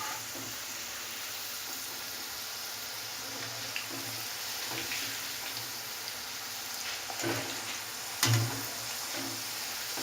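Potato finger chips deep-frying in hot oil, a steady sizzle, with a couple of brief knocks about seven and eight seconds in.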